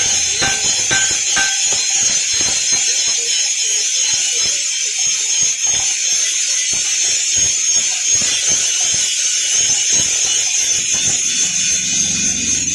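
Hammer blows on red-hot iron lying on a steel anvil plate. The first few strikes ring, then comes a run of quick, irregular knocks and clanks as the piece is shaped, over a steady hiss.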